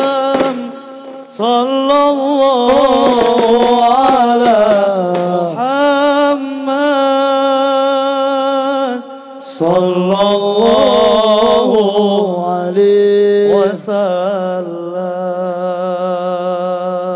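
Male voices chanting an Islamic sholawat in long, drawn-out melismatic phrases over a steady held drone, with brief breaks between phrases.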